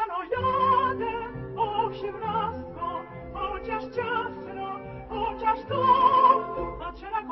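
Soundtrack music: an operatic singing voice whose held notes waver in vibrato, over accompaniment.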